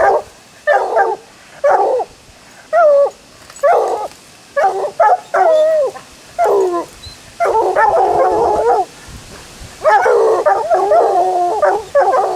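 Bluetick and walker coonhounds barking in short, pitched bawls about once a second. In two stretches in the second half, several hounds bark over one another.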